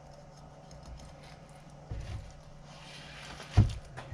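Fillet knife cutting along a walleye's backbone, with faint crackling as the blade works over the bones. There is a soft knock about two seconds in, then a longer scrape and a loud thump on the board near the end.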